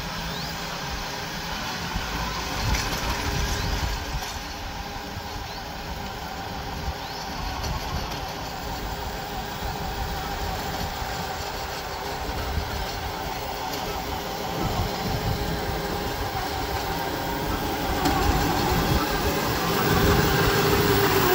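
Small electric tractor running while it pulls a rotary tiller through soil: a steady mechanical hum and whine over a rumble. It gets louder near the end as the tractor comes close.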